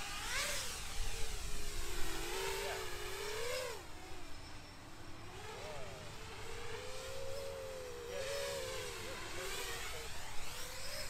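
A 7-inch FPV quadcopter's brushless motors and 6-inch propellers whine in flight, the pitch rising and falling as the throttle changes. The sound is loudest in the first few seconds, fades in the middle as the quad flies farther off, and grows again near the end.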